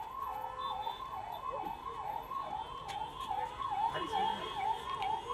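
An electronic siren warbling steadily, its pitch swinging up and down about three times a second.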